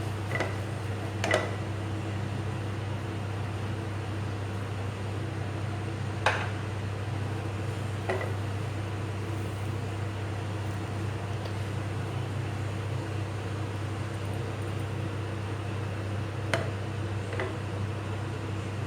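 A steady low mechanical hum, with about five light clicks and taps of bread or a utensil against the pan, the sharpest about six seconds in and another near the end.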